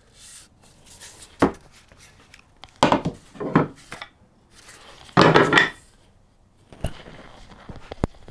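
Wooden axe handle pieces handled in gloved hands: a few short wooden knocks and clicks, with a longer scraping rub about five seconds in.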